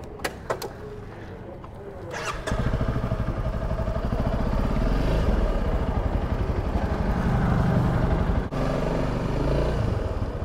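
Honda CRF300 Rally's single-cylinder engine idling, the bike standing still. It is faint at first, with a few light clicks, then comes in loud and steady about two and a half seconds in.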